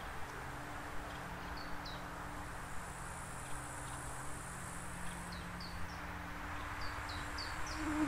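Flies and bees buzzing in several steady overlapping hums. Small birds give short, high, falling chirps in a few quick clusters. A high, thin insect trill runs for a few seconds in the middle, all over a steady low background rush.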